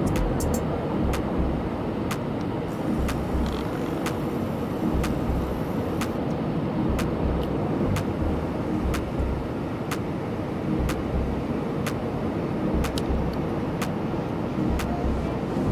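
Jet airliner cabin noise at a window seat: the steady rush of engines and airflow, with a slow low buffeting and a faint tick about once a second.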